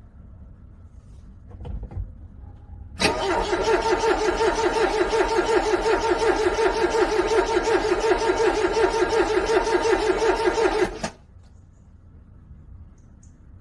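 A car's starter motor cranking a cold engine for about eight seconds, with a steady rhythmic chug as the engine turns over without firing. The cranking then stops abruptly and the engine fails to start.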